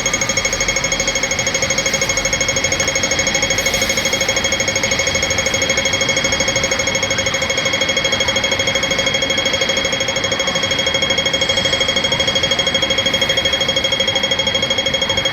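Hong Kong pedestrian crossing's audible signal ticking rapidly and evenly, a fast, unbroken pulse of the same electronic tick, the rapid rate that marks the walk (green man) phase.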